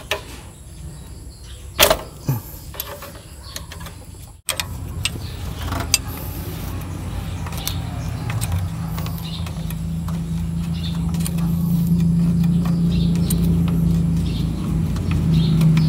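A steady low mechanical hum that grows louder through the second half, with scattered light metallic clicks of a ring wrench working the fitting on a Honda City's clutch cylinder.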